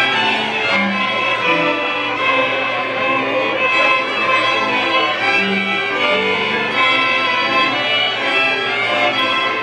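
A large group of violins playing a Polish highland (góralska) folk tune together, the music running steadily without a break.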